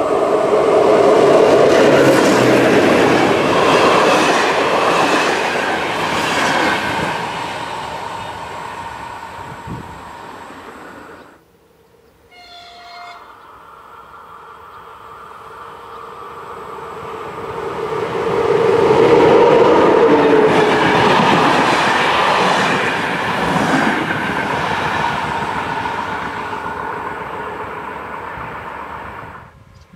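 Electric locomotive-hauled passenger train passing close by, loud and then fading away. About 11 seconds in a second train is heard: a short horn note sounds, then it approaches, is loudest about 20 seconds in as it passes, and fades.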